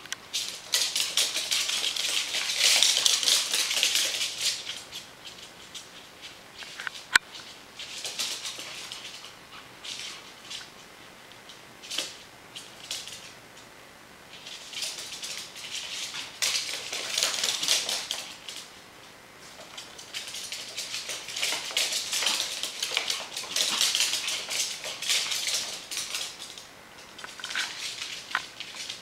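Claws of a Pomeranian and a ferret clicking and skittering in quick runs on a hardwood floor as the two chase each other. It comes in bouts of a few seconds, loudest about three seconds in, with a few single sharp clicks between the bouts.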